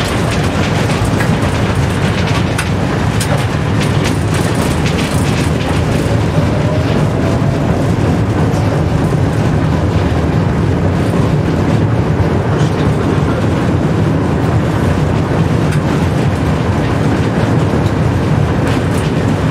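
Tram running along street track, heard from inside the driver's cab: a steady low rumble of wheels on rail with scattered clicks and knocks from the track, and a faint whine rising slightly in pitch about a third of the way in.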